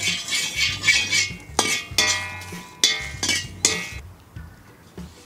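Steel ladle clinking and scraping against an iron kadai while stirring dry-roasting red chillies and fenugreek seeds. The sound is a series of ringing metallic knocks that thin out after about four seconds.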